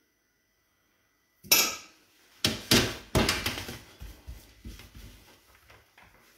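Knocks and clatter on stainless-steel catering trays while rice balls are being shaped: a sharp first knock about a second and a half in, a few more strong ones over the next two seconds, then lighter, quicker clicks tapering off.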